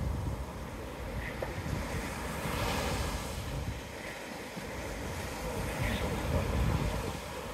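Waves breaking and washing up the beach, with wind rumbling on the microphone; a brighter wash of surf swells about two and a half seconds in.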